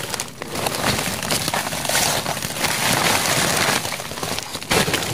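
Plastic cover sheeting rustling and crinkling as it is handled, a continuous hiss-like crackle that dips briefly about four seconds in and then picks up again.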